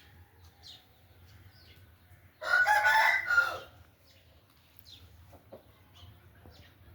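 Aseel game rooster crowing once, a short crow lasting just over a second, among faint short calls from other birds.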